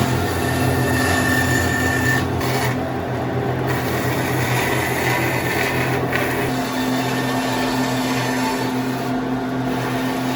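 An electric power tool running steadily with a continuous motor hum and whir. Its sound changes abruptly at about 2 and 6 seconds in.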